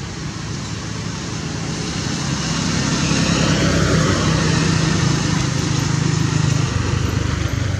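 A motor engine running steadily, growing louder about two to three seconds in and staying at that level.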